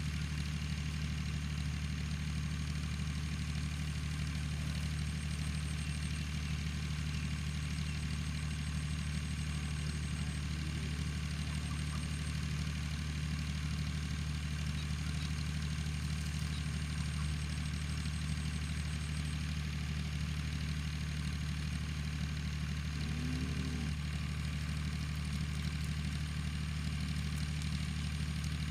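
Excavator engine running at a steady idle, a constant low hum, with faint insect chirring coming and going above it.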